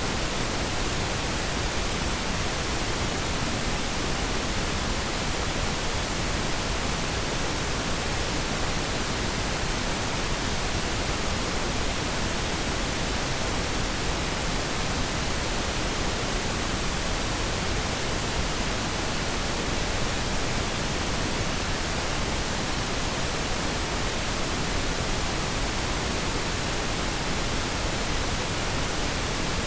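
Steady pink noise test signal, an even, unchanging hiss used for audio calibration.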